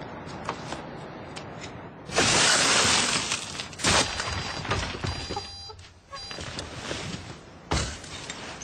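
Glass shattering about two seconds in, a loud crash lasting over a second, followed by a sharp knock and a heavy thud near the end.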